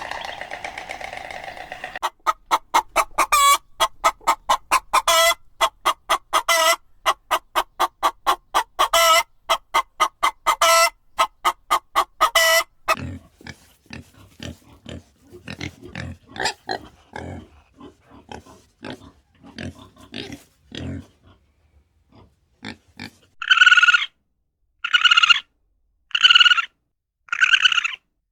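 A run of animal calls: fast, rapidly repeated short calls for about ten seconds, then a stretch of irregular low grunt-like sounds, then four loud, evenly spaced high calls near the end.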